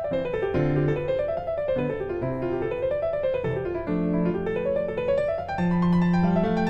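Background piano music: rippling notes climbing and falling in repeated waves over held bass notes.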